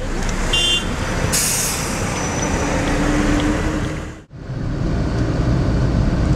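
Road traffic heard from inside a moving car: engine and road noise around a heavy truck or bus, with a brief high beep and a short sharp hiss of air brakes in the first two seconds. After a brief dropout about four seconds in, a steadier low engine drone takes over.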